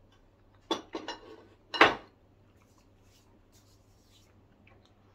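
Metal spoon and soup bowl clinking as they are handled: a quick run of clinks about a second in, then one louder knock just before two seconds.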